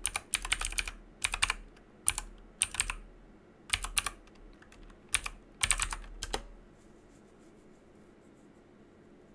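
Typing on a computer keyboard: quick clusters of keystrokes with short pauses between them, stopping about six seconds in.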